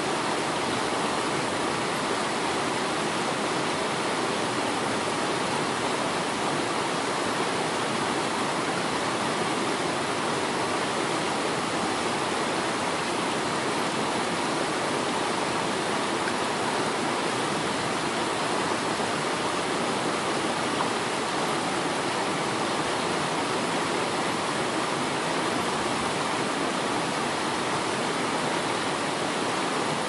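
Waterfall rushing, a steady even roar of falling water that does not change.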